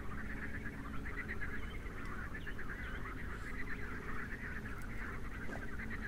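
A dense, continuous chorus of short, rapid animal calls, with a few brief higher bird chirps over it.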